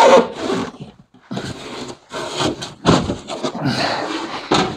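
Rigid PIR foam insulation board scraping and rubbing against timber rafters and their metal fixings as it is forced into place, in several uneven pushes, with grunts of effort.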